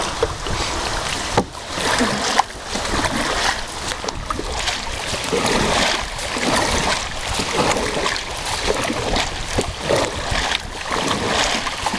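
Water splashing and rushing around a small boat moving on a river, with irregular short knocks and splashes throughout.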